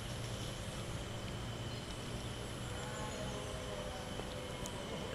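Steady outdoor ambience: a low, even rumble with faint, thin, steady high tones over it, and no distinct events.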